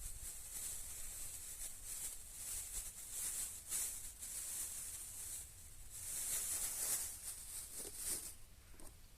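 Irregular rustling and scratching in uneven bursts, loudest from about six to eight seconds in.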